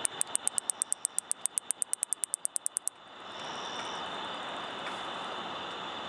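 Katydid (Microcentrum californicum) rubbing its wings to make a rapid run of sharp high ticks, about eight a second, as a mating call. The ticking stops abruptly about three seconds in, and a steady hiss follows.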